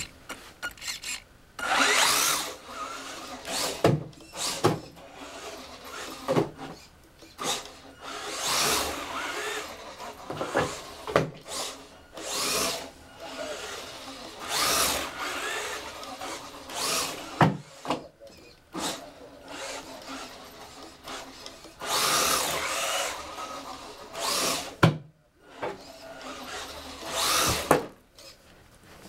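Lightning EPX electric RC drift car's motor spinning up in repeated bursts a second or two long as the car is driven, with several sharp knocks in between.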